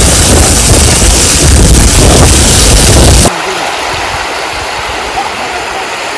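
Strong wind buffeting the microphone over the rush of the sea, cutting off sharply about three seconds in to a quieter, steady rush of water.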